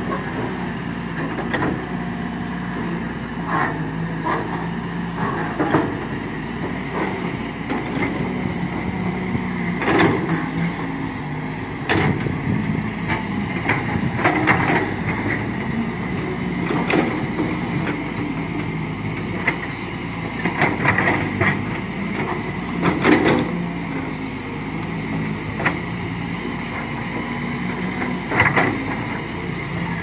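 Heavy earthmoving machinery running steadily: the diesel engines of a dump truck, bulldozer and excavators hum together, with sharp metallic clanks and knocks every few seconds.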